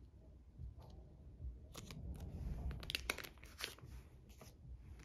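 A photocard being slipped out of its plastic sleeve and slid into a clear plastic binder pocket: soft plastic crinkling with a run of small clicks and scrapes in the middle.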